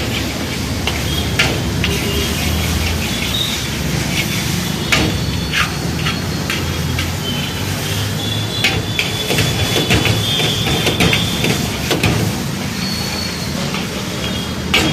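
A metal spatula clanking and scraping against a steel wok as noodles are stir-fried, sharp irregular knocks over a steady low rumble.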